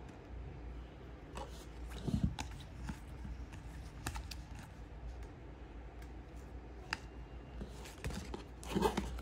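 Trading cards being handled and flipped through: scattered soft clicks and rustles, with a louder knock about two seconds in and a louder scuffle near the end.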